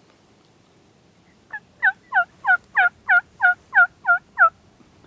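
A series of turkey hen yelps: about ten evenly spaced notes, roughly three a second, each falling in pitch. The first is faint and the rest are loud and even.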